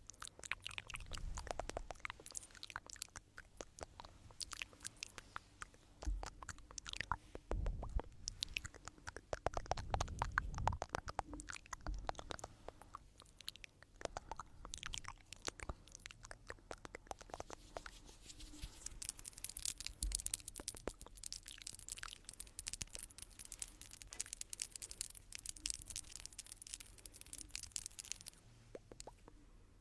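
Close-miked stones rubbed and knocked together, giving dense, irregular crunchy clicks and scrapes. In the second half a brighter, hissing scrape runs for about ten seconds.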